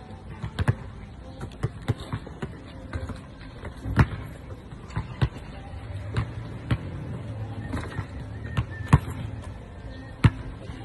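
A basketball bouncing on an outdoor asphalt court: a dozen or more sharp single bounces at irregular intervals, the loudest about four seconds in and again near the end.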